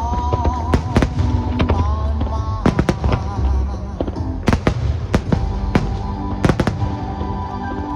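Fireworks bursting in an irregular series of sharp bangs and crackles, with low booms beneath, over music playing steadily. The bangs stop near the end and the music carries on.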